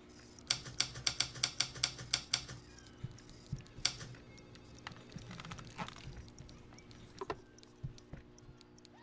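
Manual typewriter keys clacking: a quick, even run of about ten strikes, then scattered single clicks and taps.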